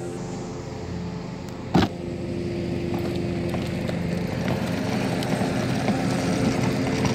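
A small motor running with a steady hum. There is one sharp click about two seconds in.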